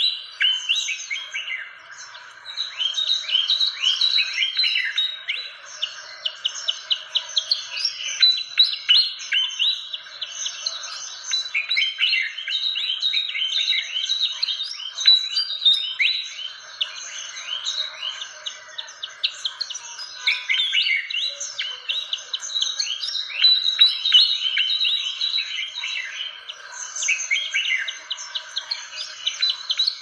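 Fantail (burung kipasan) birdsong: a busy, continuous chatter of rapid high chirps and short downward-sweeping notes, over a faint steady hiss.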